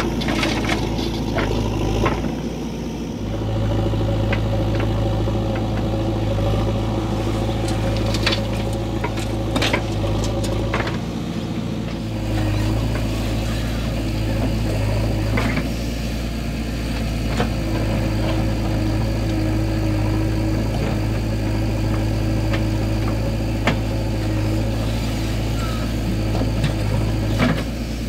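JCB 3DX backhoe loader's diesel engine running steadily as the backhoe arm digs and dumps soil into a tractor trolley, with scattered knocks and clunks from the bucket and the falling soil.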